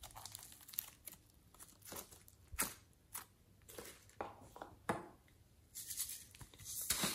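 Glossy slime being stretched and folded by hand, with irregular sticky crackles and pops and a few short squelches.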